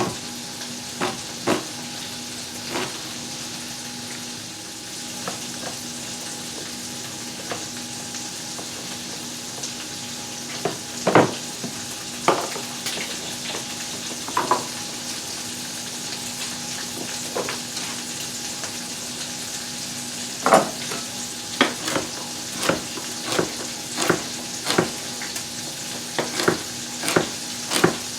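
Chicken browning in butter in a fry pan, a steady sizzle, with sharp knife knocks on a cutting board as vegetables are chopped: scattered at first, then about one a second near the end.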